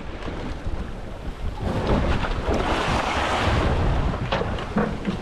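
Wind and sea-water rushing noise on the microphone, swelling to a loud rush about two seconds in and easing off again near the end.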